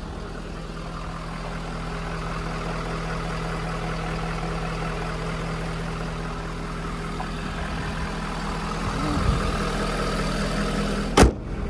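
Ford 6.7 Power Stroke V8 turbo-diesel idling steadily, with a single sharp knock near the end.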